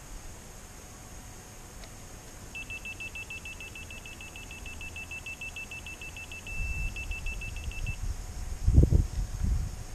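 A laser level receiver beeping rapidly, about seven high beeps a second for some five seconds, switching briefly to a steady tone partway through, its on-level signal. Low thumps follow near the end.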